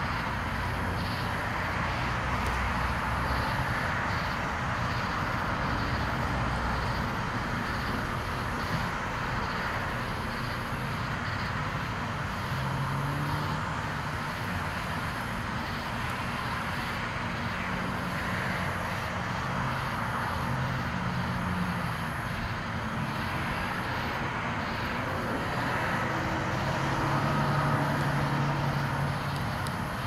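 Steady background rumble and hiss with faint low hum tones, swelling slightly near the end.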